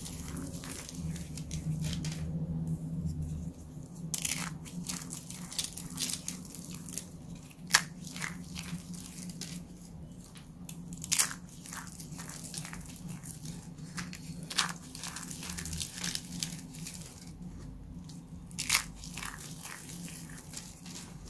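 Dry, brittle soap rose curls and baking soda crushed between the fingers: irregular crunching and crackling, with a few louder sharp snaps spaced several seconds apart.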